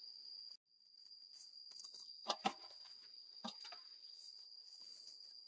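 Steady high-pitched insect drone, with a brief dropout about half a second in. Two sharp knocks come about two and a half seconds in, and a softer one a second later, as the heavy log is shifted onto the steel pallet jack.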